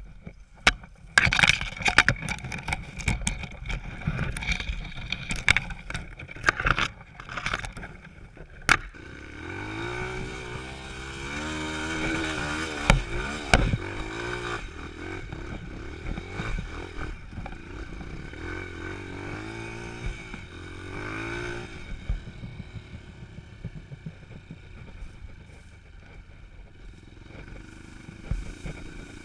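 Dirt bike being handled after a fall, with sharp knocks and scrapes for the first several seconds. Then its engine runs and revs up and down as the bike moves off, settling to a lower, steadier running sound for the last several seconds.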